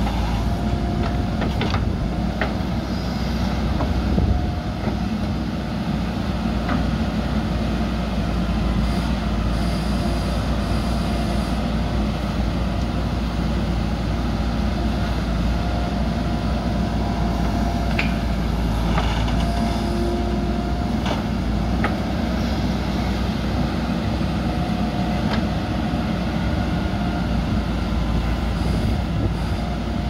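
JCB 3DX backhoe loader's diesel engine running steadily under load as the backhoe digs soil from a trench and dumps it into a dump truck. Short whines come and go over the engine, with a few sharp knocks.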